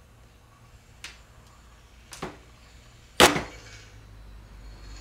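Three short, sharp sounds about a second apart, each louder than the last; the third is much the loudest and dies away briefly. A faint low hum runs underneath.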